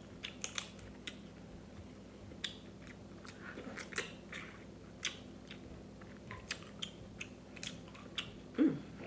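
Close-up eating of snow crab legs: scattered sharp clicks and cracks of the shell, wet mouth sounds and chewing as the meat is pulled from the legs and eaten.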